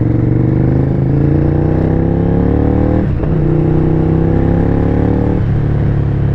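Honda VTR V-twin sportbike engine accelerating through the gears, its pitch rising steadily and dropping at upshifts about three seconds in and again near the end.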